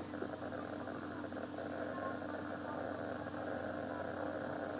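Steady low hum and hiss of background room tone, with no distinct event.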